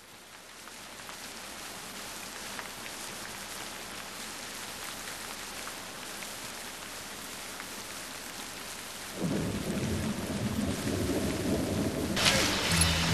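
Steady rain falling, fading in at the start. About nine seconds in a louder, deeper rumble joins it, and near the end the sound grows louder and brighter.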